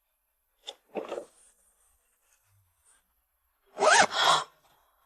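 A couple of short rustling or scraping noises, then a brief wordless vocal cry or grunt near the end.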